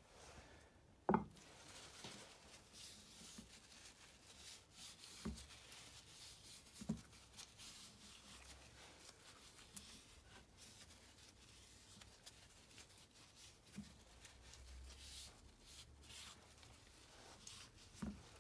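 Faint rubbing of a cloth wiping the mating face of a differential crown wheel clean, with a few light knocks and clicks of metal parts handled on the bench, the sharpest about a second in.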